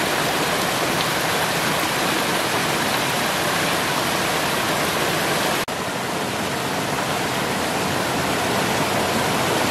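Steady rush of water pouring over a small stone weir into a shallow rocky stream. It breaks off for an instant about halfway through, then carries on.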